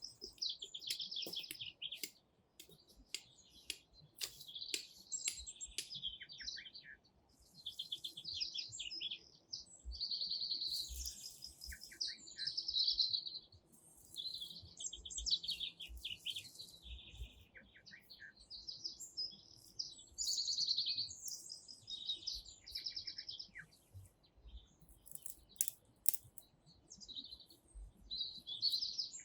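Songbirds singing, repeating short rapid trilled and chirping phrases with brief gaps between them. Scattered sharp clicks and a few low thumps sound underneath.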